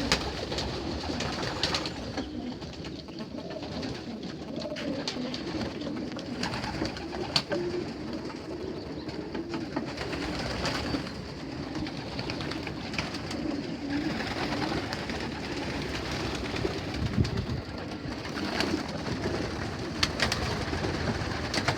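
Young racing pigeons cooing steadily in a loft, many birds calling over one another, with a few sharp clicks.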